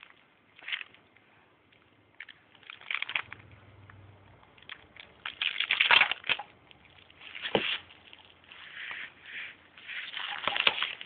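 Baby's plush and crinkle toys rustling and crackling as he grabs and shakes them and kicks on a padded play mat. The noises come in irregular bursts, loudest about six seconds in, with a single sharp knock about a second and a half later.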